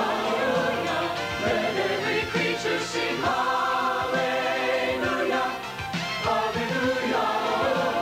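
Mixed choir of men's and women's voices singing a song together, sustained notes changing every second or so.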